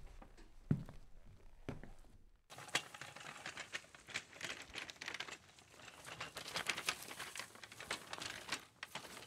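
Faint intro sound effects: a couple of soft low thumps, then from about two and a half seconds in a dense crackling texture of many small clicks, like crinkling or rapid typing, as the title text appears.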